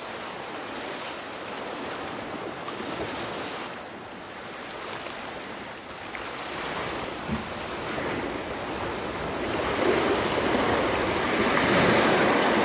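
Sea surf washing onto a sandy beach, with some wind on the microphone; the wash swells louder over the last few seconds.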